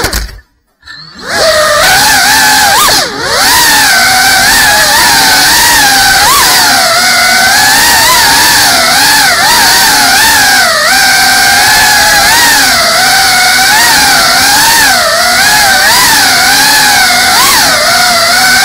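FPV quadcopter's brushless motors and propellers whining, the pitch wavering up and down with the throttle as it flies. About half a second in, the motors cut out almost to silence for roughly a second, then spin back up with a rising whine.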